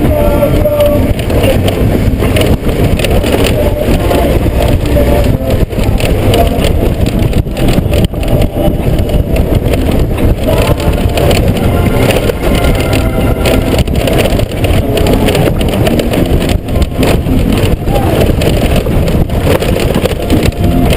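Honda GoldWing GL1500 flat-six running steadily on the move over a gravel track, mixed with wind buffeting on the helmet-mounted camera.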